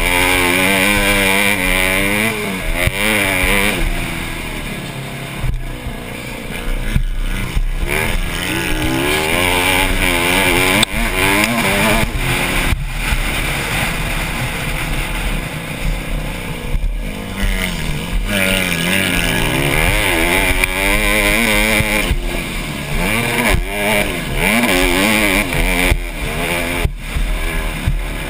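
Honda CRF150R single-cylinder four-stroke dirt bike engine revving hard under race load, its pitch repeatedly climbing through the revs and dropping at each shift or throttle-off, with a steady rushing noise over it.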